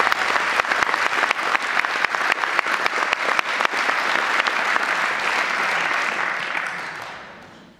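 Audience applauding, a dense patter of many hands clapping, fading away over the last two seconds.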